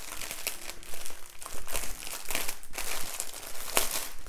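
Clear plastic bags of diamond-painting drills crinkling as they are picked up and handled, in irregular rustles and crackles.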